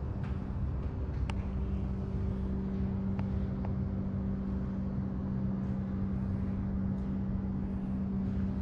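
Steady low mechanical hum of a building's ventilation or air-conditioning system, an even drone with a constant low tone, broken by a few faint clicks.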